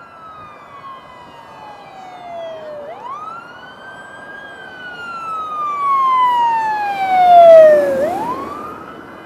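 Fire engine siren wailing as the engine drives past. Its pitch falls slowly, then jumps quickly back up twice. It grows loud and is loudest about seven to eight seconds in.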